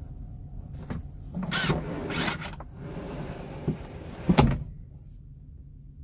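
Pull-out fridge unit in a truck cab sliding on its runners: two short sliding rushes, a few small clicks, then a sharp knock, the loudest sound, a little past four seconds.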